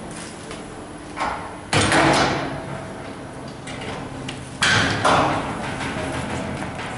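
Steel winding shaft of a paper slitter rewinder being handled and pulled from the cores of slit paper rolls: a light knock a little over a second in, then two loud metallic clanks about two and four and a half seconds in, each trailing off over about half a second, over a faint steady hum.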